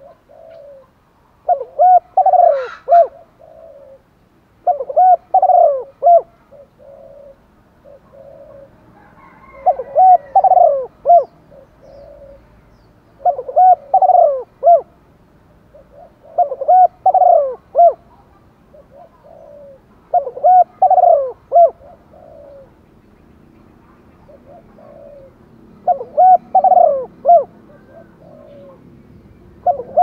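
Caged decoy spotted dove cooing its short phrase of several coos, repeated about every three to four seconds.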